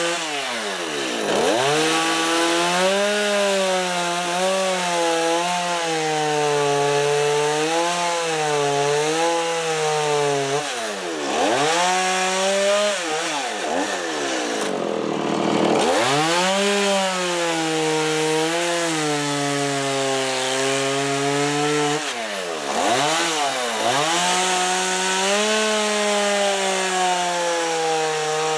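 Two-stroke chainsaw cutting into a block of wood to carve tapering bevels, its engine pitch wavering as the chain bites. The throttle is let off and opened again about four times, each a quick drop in pitch and a rev back up.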